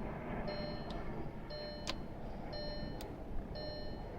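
An electronic warning chime, a short multi-pitched beep repeating about once a second, with a few sharp clicks and a steady low rumble behind it.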